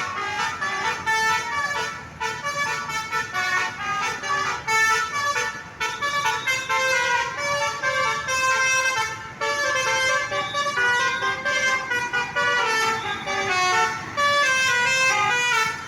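Telolet musical horn playing a quick melody of changing notes, several notes a second, with only brief breaks.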